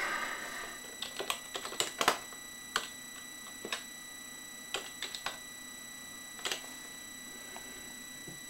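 Computer keyboard being typed on: short runs of key clicks with pauses between them. A faint steady high-pitched whine sits underneath, which the uploader puts down to his PC fan.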